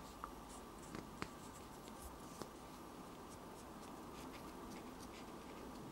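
Faint scratchy rubbing of a cotton bud scrubbing grime off a small whitemetal model locomotive body, with a few light ticks from handling the model in the first half.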